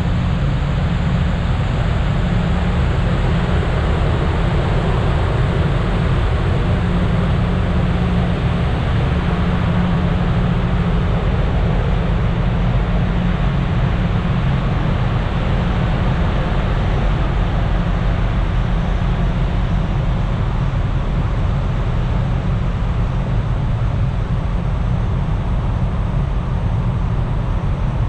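Steady low rumble with a rushing noise from a passenger ferry under way, unchanging throughout.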